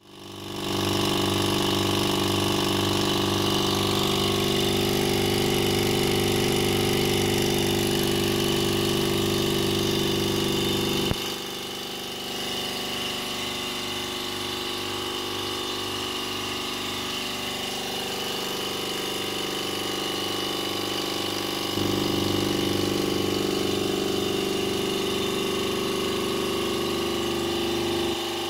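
Electric vacuum pump running steadily with a pulsing hum, pulling vacuum on a bag over a fibreglass layup. The hum drops suddenly to a lower level about a third of the way in and comes back up about three quarters of the way through.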